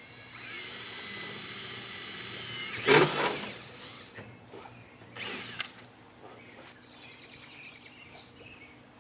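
A power drill running steadily for about two and a half seconds, then a loud clatter about three seconds in. A shorter noisy burst and a single click follow.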